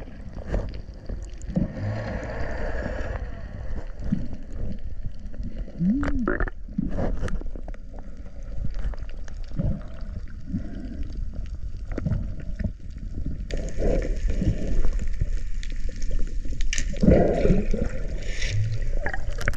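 Water gurgling and sloshing around an underwater camera, with scattered knocks; it grows louder and busier from just past the middle.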